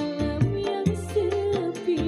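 Small live dangdut-style band playing: hand drums struck in a quick rhythm over an electronic keyboard with a low bass line and a wavering, ornamented melody.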